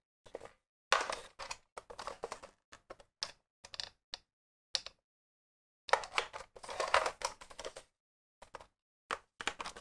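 Hard plastic DX Genesis Driver toy belt being handled and turned over in the hands: irregular plastic clicks, taps and light rattles, busiest in two stretches about a second in and about six seconds in.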